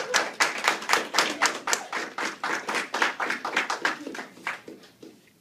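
Hands clapping rapidly, about five claps a second, growing fainter and stopping shortly before the end.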